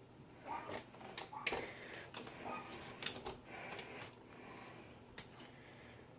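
Faint scattered clicks, light knocks and rustling of someone moving about, dying down to near quiet after about four seconds.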